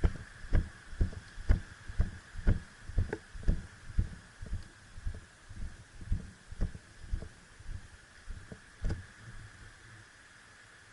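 Footsteps of a player walking with the camera, dull thuds at about two a second that fade out about nine seconds in.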